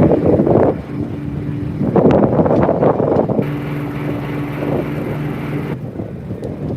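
A boat's engine running with a steady low hum, with wind buffeting the microphone in two loud gusts in the first half.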